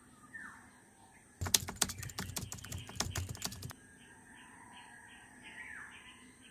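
Rapid computer-keyboard typing clicks for about two seconds, starting a little over a second in and stopping abruptly. Birds chirp before and after the typing.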